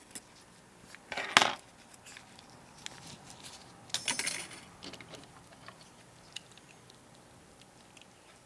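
Thin photo-etched metal fret and a tiny scale-model brake disc clinking and rattling as they are handled and cut free with fine cutters. Two short bursts of metallic jingling, about a second in and about four seconds in, with a few small ticks between.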